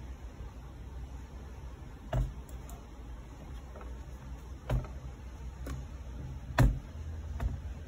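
A handful of short, light knocks and clicks, about five in all, with the loudest about six and a half seconds in, over a low steady rumble. The sound comes from hands handling the closed Acer Extensa 15 laptop on a desk.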